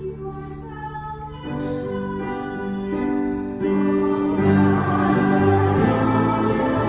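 A girl singing solo as cantor with instrumental accompaniment. A saxophone comes in partway through and the music grows louder.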